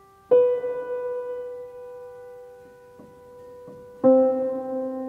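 Slow piano music: a struck chord rings out and fades about a third of a second in, two soft notes follow, and another chord is struck about four seconds in.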